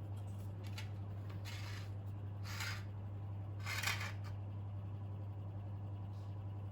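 A few short, crisp scraping noises from hands working small parts, the loudest a little past the middle, over a steady low hum.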